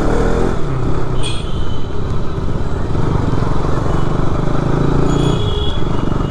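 KTM RC 200's single-cylinder engine running as the motorcycle rides at low speed through town traffic, with wind on the microphone. The engine note falls in the first half-second, then holds steady. Two short horn beeps from traffic come about a second in and again around five seconds in.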